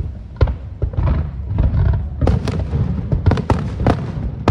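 Aerial fireworks bursting: a rapid series of sharp bangs and cracks, coming thickest in the second half, over a steady low rumble.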